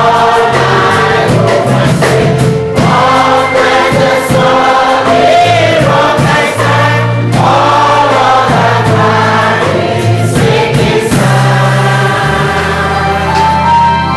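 Choir singing gospel music over sustained bass accompaniment, in phrases of a few seconds each.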